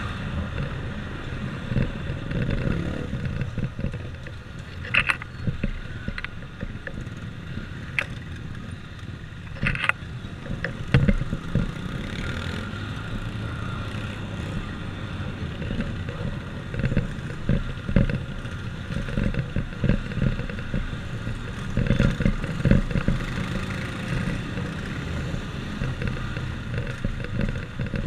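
Motorcycle engine running at low riding speed in city traffic, heard from the rider's seat with road noise, and a few short sharp sounds in the first half.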